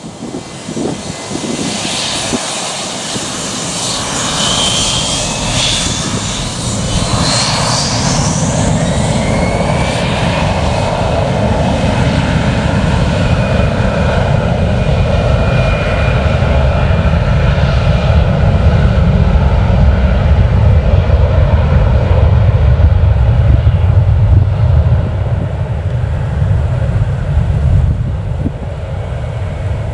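Gulfstream G450's twin Rolls-Royce Tay turbofans spooling up for takeoff. A whine rises in pitch and settles into a steady high tone over a low rumble that grows louder as the jet begins its takeoff roll.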